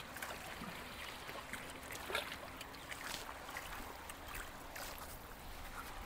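Water lapping and trickling against jetty rocks, faint and steady, with scattered small ticks.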